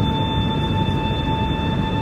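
Airbus A380's Rolls-Royce Trent 900 engines heard from inside the cabin: a steady low rumble with a high whine holding at one pitch.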